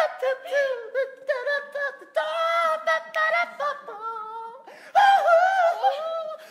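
Unaccompanied wordless singing by one high voice, holding notes that bend up and down in short phrases with brief gaps, quieter for a moment then loud again about five seconds in.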